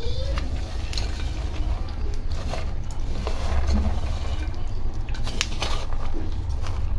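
Raw peanuts being stirred with a wooden spoon in a dry pan while roasting: a rustle of nuts sliding and knocking together, with a few sharp clicks against the pan, over a low steady rumble.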